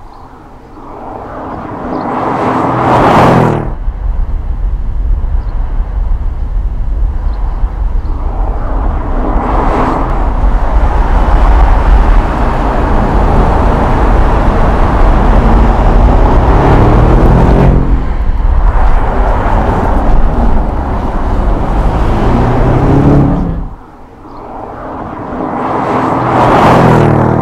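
Audi S7 Sportback's twin-turbo 4.0-litre V8 running hard in several passes, the engine note climbing in pitch as it accelerates, swelling loud as it comes close and falling away. The sound drops off suddenly about three-quarters of the way through, then builds up again.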